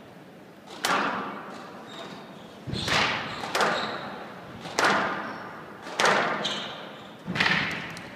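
Squash rally: the ball cracking off the racket and smacking against the court walls, about seven sharp hits roughly a second or so apart, the first about a second in. Each hit rings on in the large hall.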